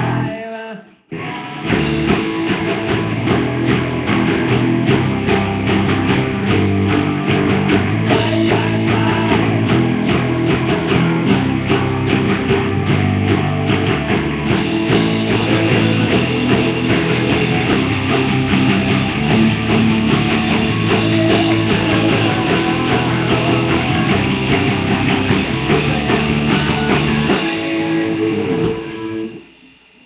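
Rock band playing loud guitar-driven music with bass and drums, mostly without vocals. It stops briefly about a second in, then plays on steadily and dies away near the end.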